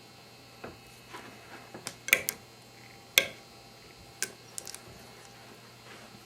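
Hand snap press bearing down on a plastic (resin) snap set sideways between its dies, giving a series of sharp clicks and cracks, the loudest a little after three seconds in, as the plastic is squeezed to break it apart.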